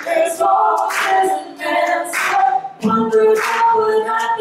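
A woman and a man singing a duet a cappella, with long held notes and no instrumental accompaniment.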